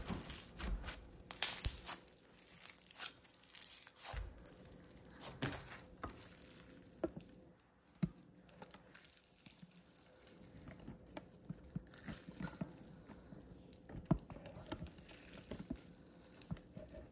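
Pale blue textured slime being stretched, folded and pulled apart by hand, giving a run of small irregular pops and crackles with soft squishing between them.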